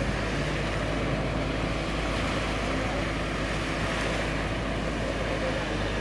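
Engine of an amphibious backhoe dredger running steadily as it moves across shallow water, heard over a steady wash of wind and water.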